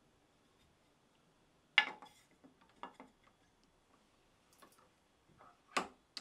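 Scattered sharp knocks and clicks of wood and metal, the loudest about two seconds in and another near the end, as a workpiece is set into a wooden chair maker's vise and the vise's brass-ended screw handle is turned and let fall.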